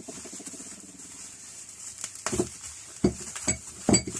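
A parcel being unpacked by hand: a rapid crackling rasp of packaging for about two seconds, then a few sharp knocks and clinks as items are handled.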